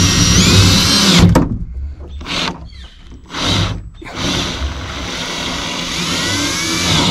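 Power drill driving a self-tapping screw into steel tubing: the motor whines and rises in pitch, stops about a second in, gives two short bursts, then runs again and rises in pitch near the end as the screw tightens.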